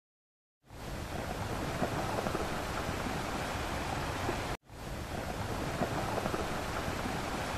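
A steady rushing hiss of even noise begins about half a second in and cuts out for a moment about halfway through before carrying on.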